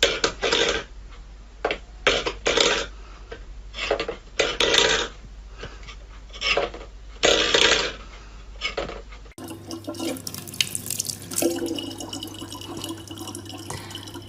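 A stainless steel pet bowl scraping and clattering on a wooden floor in about seven short bursts as a cat paws it. About nine seconds in this gives way to a thin stream of water running steadily from a tap into a plastic bottle.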